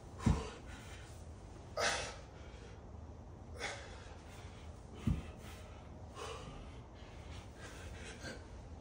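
Sharp, forceful breaths pushed out in short bursts about every two seconds by a man working a kettlebell. Two dull low thumps come about a third of a second in and about five seconds in; the first is the loudest sound.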